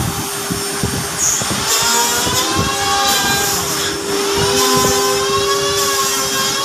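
CNC router running: a steady whine under motor tones that slowly rise and fall as the axes move, with a scatter of low knocks and bursts of high hiss.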